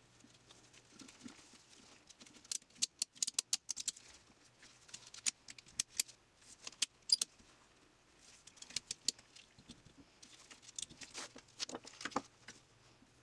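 Ratchet strap being cranked, its metal ratchet clicking and rattling in several short bursts of rapid clicks as it draws a rubber bushing onto an aluminium control arm.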